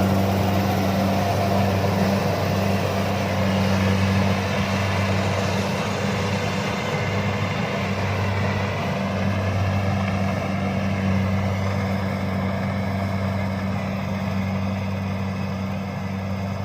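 Rice combine harvester engine running steadily with a constant low hum, easing slightly toward the end.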